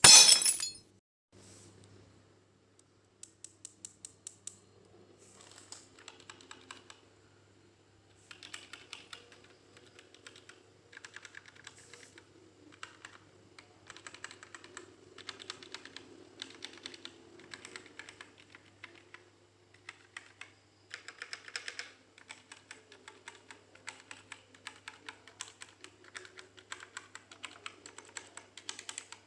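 Dareu EK871 mechanical keyboard with brown switches being typed on: runs of quick keystroke clicks, each run a few seconds long, with short pauses between. A brief loud knock comes right at the start.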